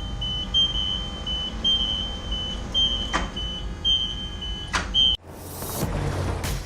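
Vehicle engine being cranked by its starter motor without catching, with a high, on-and-off squealing whine over a low rumble. It cuts off abruptly about five seconds in, followed by a short hiss.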